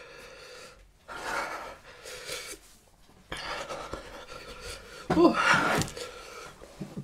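A man panting hard through his open mouth, several long rough breaths, from the burn of an extremely hot chili chip. A louder, partly voiced huff comes about five seconds in.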